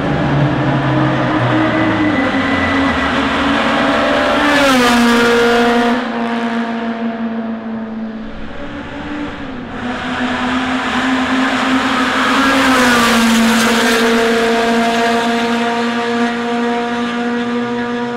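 Proton race cars passing at speed on a circuit straight, one after the other: each engine note swells to its loudest and drops in pitch as the car goes by, about four and a half seconds in and again about thirteen seconds in.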